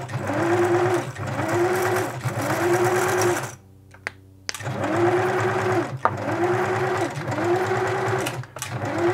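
Singer Futura 2002 electronic sewing machine running in a series of short runs, each about a second long, its motor whine rising in pitch, holding, then dropping away. There is a pause of about a second a little before the middle.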